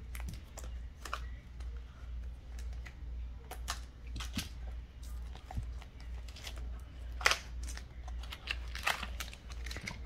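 Plastic shrink wrap crinkling and a cardboard trading-card theme deck box being handled and opened: an irregular string of sharp crackles and clicks, loudest about two-thirds of the way through, over a steady low hum.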